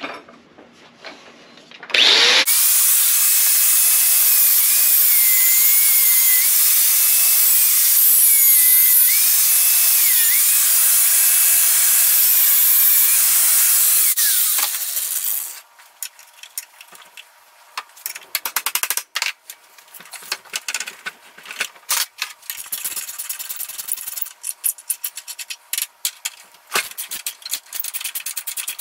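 A handheld angle grinder runs loudly for about twelve seconds, grinding the welded-on bolt off a steel mower blade; its motor pitch sags and recovers again and again as it bites under load. It shuts off, and then come irregular metallic clicks and clinks of a hand wrench working the blade nut.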